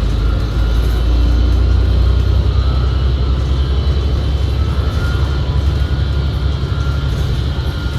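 Interior drivetrain noise of a 2019 New Flyer XD60 articulated bus under way: a heavy, steady low rumble with thin whining tones above it. The uploader calls the transmission's sound very weird, loud enough to mask the engine.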